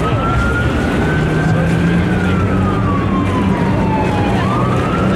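Siren wailing in a slow rise and fall, one long cycle of about four seconds, sweeping up again near the end. A steady low boat-engine drone runs underneath.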